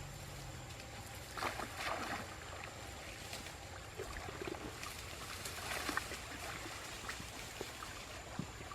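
Water sloshing and splashing lightly, with a few small splashes scattered through.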